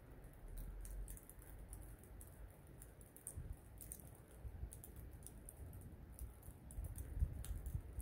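Snowfall ambience: faint, irregular light ticking and patter, with a low, uneven rumble of wind on the microphone that grows stronger near the end.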